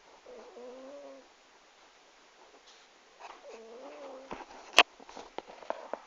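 Cat snoring: two drawn-out, tonal snores about three seconds apart. In the last second and a half comes a run of small clicks, including one sharp, loud click.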